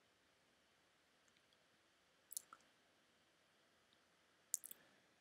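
A few sharp computer mouse clicks, in two small clusters about two seconds apart, over near-silent room tone.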